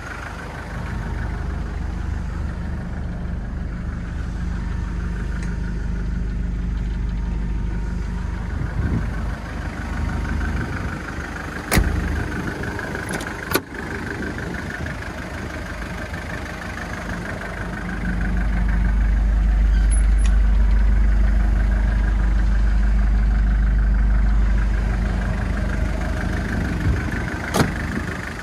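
Hyundai Galloper II's engine idling with a steady low hum that grows louder for several seconds past the middle. Sharp clicks from its doors being handled come twice about halfway through and once near the end.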